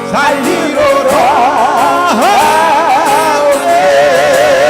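Korean gospel song, a singer's voice with strong vibrato over instrumental accompaniment. The line is drawn out into a long held note in the second half.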